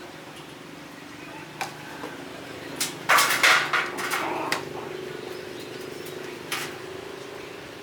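Scattered light clinks and knocks of hard objects, as of tools or metal parts being handled, with a quick clatter of several near the middle, over a steady low hum of a running machine.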